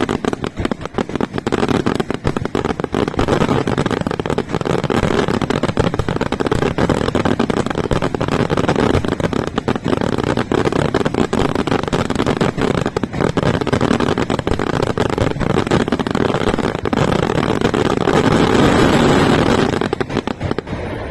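Aerial fireworks display firing a dense, continuous barrage of rapid bangs and crackles over a heavy rumble, easing off just before the end.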